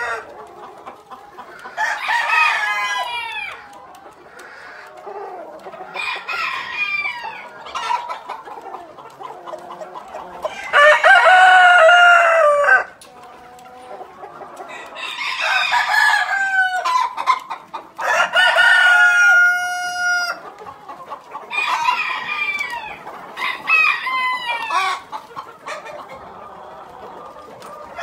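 Bielefelder roosters crowing again and again, a crow every few seconds, the longest and loudest about eleven seconds in, over hens clucking.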